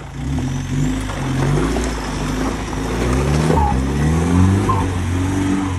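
Modified off-road 4x4's engine revving hard, its pitch rising and dropping several times as the throttle is worked to drive the vehicle up and over rough ground.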